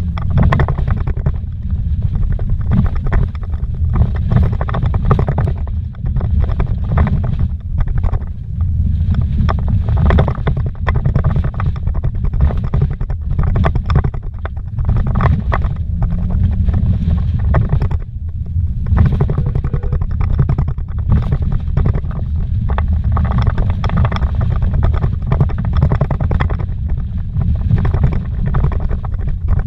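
Vehicle driving fast over a rough dirt road, heard from inside the cabin: a loud, steady low rumble from the tyres and running gear, with frequent irregular knocks and rattles as it jolts over the bumps.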